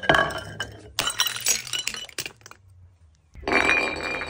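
Glass soda bottles clinking and breaking: two sharp glass strikes with ringing about a second apart, then after a short pause a continuous clattering and ringing of glass near the end.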